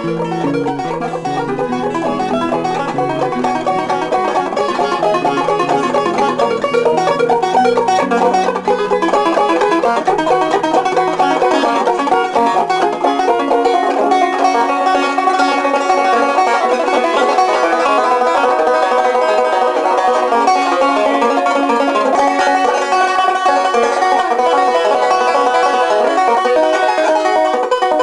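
Banjo being picked, playing a tune of quick, busy notes. The lowest notes fall away about halfway through.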